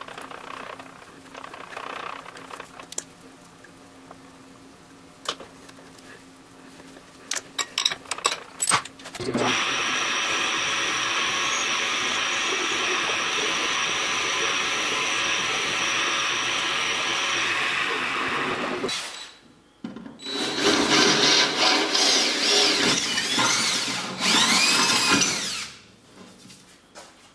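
Milling machine drilling through a small aluminium block with a twist drill: after a few light clicks, the spindle and bit run steadily for about nine seconds with a high whine. After a short break, a second power tool runs in bursts for about six seconds, its whine wavering in pitch.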